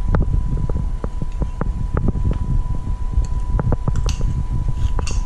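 A steady fan-like hum with a thin constant whine and a heavy low rumble, over scattered light knocks and clicks.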